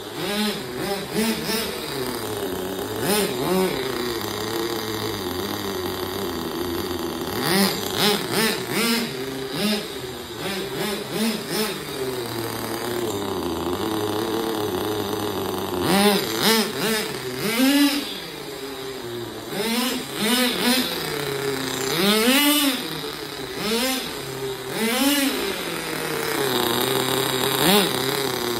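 Small nitro engine of a Kyosho GP10 RC car (GT15) running at idle, blipped up to higher revs and back down several times, most often in the second half.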